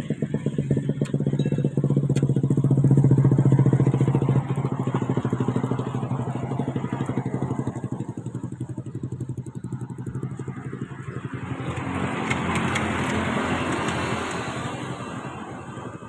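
Rear-mounted diesel engine of a Mercedes-Benz 1526 bus idling close by, a steady rhythmic clatter. A rushing hiss swells in about twelve seconds in and fades by the end.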